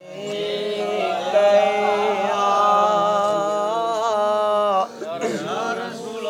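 A man singing a Sindhi naat, a devotional chant in praise of the Prophet, as a solo voice in one long held, wavering melismatic phrase that breaks off about five seconds in before the next phrase begins.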